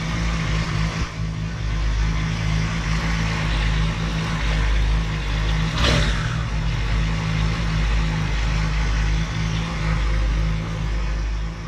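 Triumph Tiger 1200 Explorer's three-cylinder engine running steadily, with one brief sharp blip about six seconds in. The bike is in for a noise that the mechanic traces to excessive play in its clutch basket.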